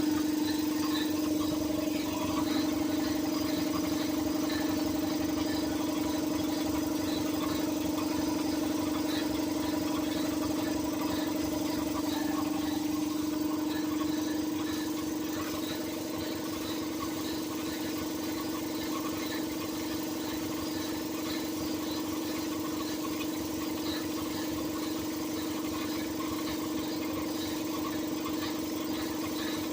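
Compressor running with a steady hum and a scatter of light, rapid ticks, a noise the owner calls weird.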